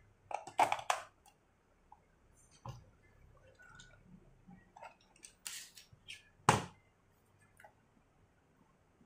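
Hard plastic clicks and knocks from a toy car being handled: a quick cluster of clicks at the start as AA batteries are pressed into its spring-contact battery compartment, then scattered taps and a sharp knock about two-thirds of the way through as the plastic body is turned over and put down.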